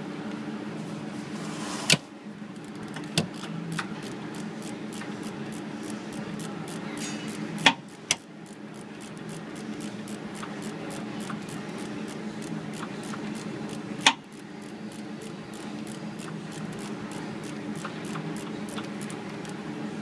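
Hand ratchet clicking in a long, fairly even run as it backs out the oil pressure relief valve on a 6.0 Ford Powerstroke diesel, with a few louder sharp clicks. A steady low hum runs underneath.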